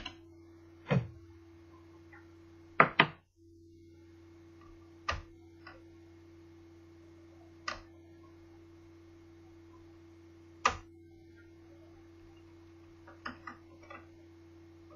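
Scattered sharp clicks and knocks of tools and hard plastic parts as a Toshiba Satellite L650D laptop is taken apart, about ten in all, the loudest a close pair about three seconds in. A steady low electrical hum runs underneath.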